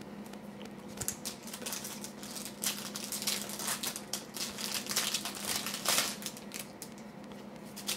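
Plastic wrapper of a sealed trading-card pack crinkling as it is torn open and handled, a dense run of crackles and rustles. Near the end come the softer rustles of the cards being shuffled.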